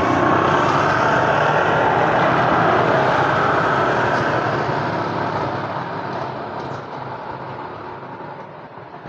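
A motor vehicle driving away, its engine and road noise loud at first and fading steadily over several seconds.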